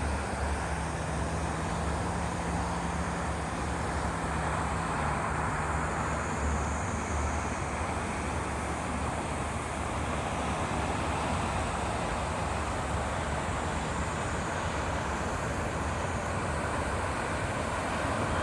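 Steady rush of road traffic with a low rumble, and a vehicle's engine drone heard for the first few seconds.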